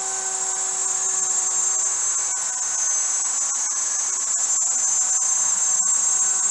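Router spinning in the SHARK RS1000 Pro CNC router table, its bit cutting a biscuit slot into the face of a wooden board while the fence moves the board automatically. It makes a steady high-pitched whine that gets a little louder about a second in.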